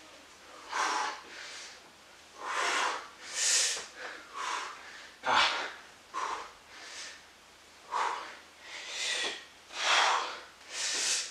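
A man breathing hard from exertion, with sharp, forceful breaths coming about once a second as he works through seated knee tucks. There is a single dull thump a little over five seconds in.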